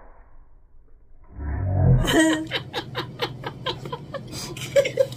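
People laughing hard in quick, rhythmic bursts, starting about two seconds in right after a brief low rumble.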